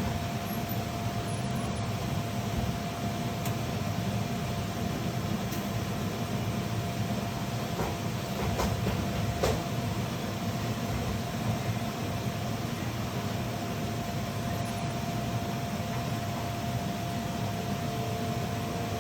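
A steady low mechanical hum with a constant faint whine running through it, and a couple of light clicks about halfway through.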